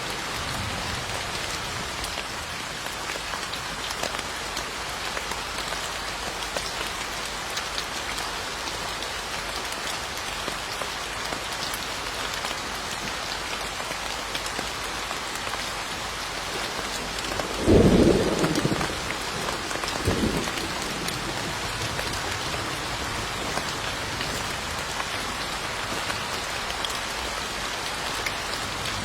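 Steady rain falling on a surface, with a low clap of thunder a little past the middle, followed about two seconds later by a second, weaker rumble.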